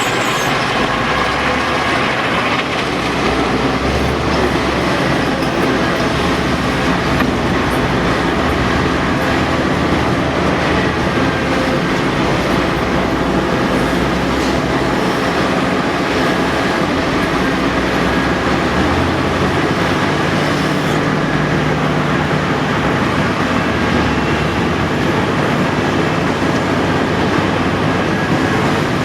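Heavy diesel earthmoving machinery working: a loud, continuous engine and machine noise whose low engine note shifts a few times as the load changes.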